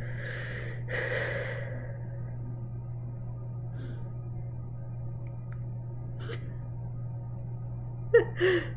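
A woman sighs out a breath into a close microphone in the first two seconds, over a steady low electrical hum. A short laugh comes near the end.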